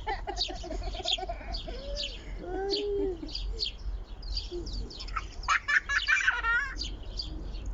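Sparrows chirping in a flock that is being fed, short chirps throughout and a thick burst of chatter about five to six and a half seconds in.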